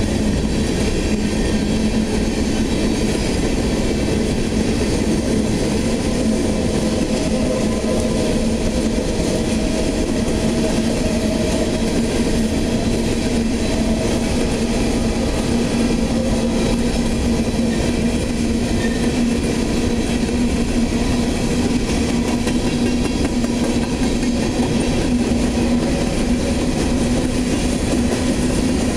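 Empty steel coal hopper cars of a freight train rolling past at speed: a steady rumble and clatter of wheels on the rails, with a steady hum throughout.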